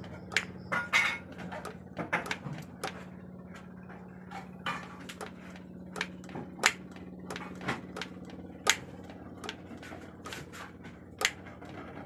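Scattered sharp metallic clicks and taps at irregular intervals, from handling parts and tools on a diesel injection pump, over a steady low hum.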